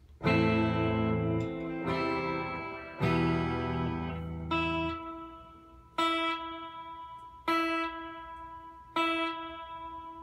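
Electric guitar played through a Fender Deluxe Reverb tube amp with its spring reverb set to 5. A few full strummed chords over the first five seconds are followed by lighter chords struck about every second and a half, each left to ring out with a reverb tail.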